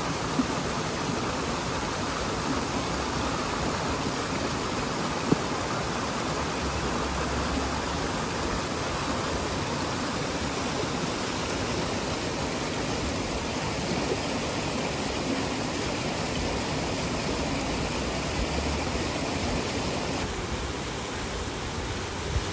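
Steady rush of running water, like a stream or small waterfall, with a single sharp click about five seconds in.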